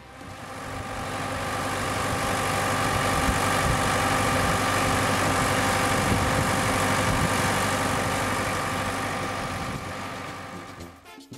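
Sonalika 90 hp tractor's diesel engine running steadily while pulling a plastic-mulch laying implement. The sound fades in over the first couple of seconds and fades out near the end.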